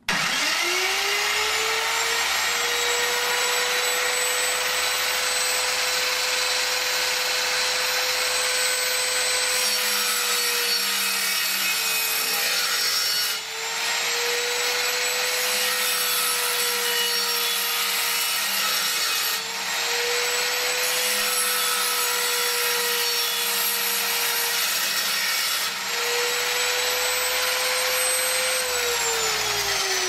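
Circular saw spinning up quickly to speed and running with a steady high whine. The whine dips briefly three times in the middle, as the blade is loaded cutting wood, and the saw begins to wind down near the end.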